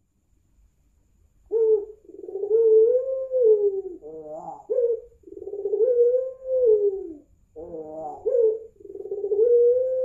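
Young male white ringneck dove of the puter pelung type cooing: three long drawn-out coos, each swelling and falling in pitch, with short broken notes between them, starting about a second and a half in.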